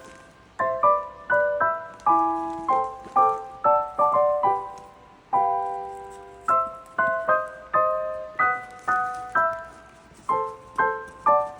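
Background music: a gentle solo piano melody of single struck notes, each fading before the next.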